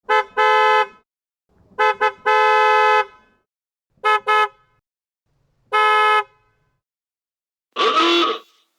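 Car horns honking in several patterns: short double toots and held blasts lasting up to about a second. Near the end comes a different, buzzier horn blast with a wavering pitch.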